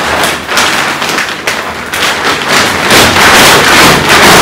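Plastic packaging bag crinkling and rustling loudly as it is pulled up off a rolled-up mattress, a continuous run of quick, irregular crackles.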